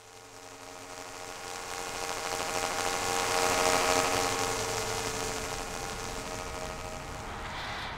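A steady buzzing drone of many held tones over a high hiss. It fades in, is loudest about halfway through, then slowly eases off.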